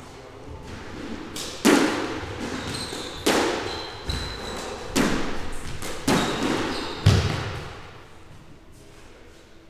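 Squash rally: a rubber squash ball is struck by rackets and smacks off the court walls, about five sharp hits a second or so apart, each ringing in the enclosed court, until play stops about seven seconds in. Short squeaks, likely from shoes on the wooden floor, come between hits.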